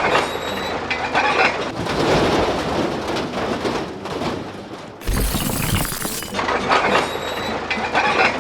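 Clattering and crashing noises with repeated knocks, and a sudden loud rush of noise about five seconds in that lasts just over a second.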